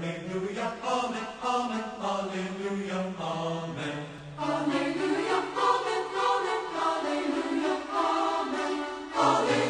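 Background music of chanted, choir-like singing over a low held tone, growing louder near the end.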